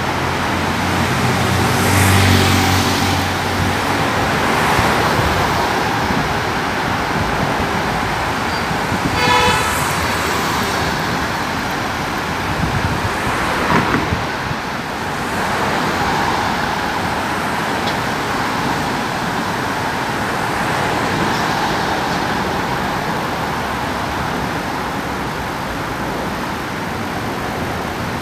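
Road traffic: cars passing by over a steady hum of traffic noise, with one short car horn toot about nine seconds in.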